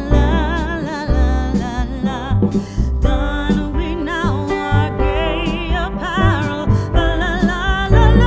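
Background music: a song with a singer's voice over guitar and a heavy bass line.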